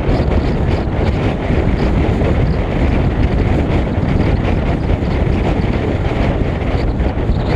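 Steady wind rush buffeting the microphone of a camera mounted on the outside of a moving car's hood, over the car's road noise.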